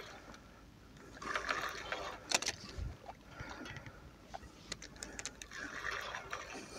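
Small waves lapping against a rock ledge at the shoreline, with scattered short clicks from the spinning reel as a hooked carp is played.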